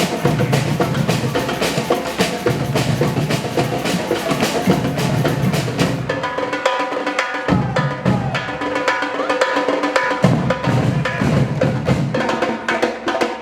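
Marching drum band playing, with snare and bass drums beating fast and steadily. About halfway through, held pitched notes of a melody come in over the drums.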